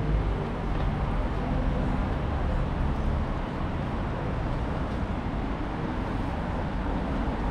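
Steady street ambience of passing traffic, a constant low rumble with no distinct events.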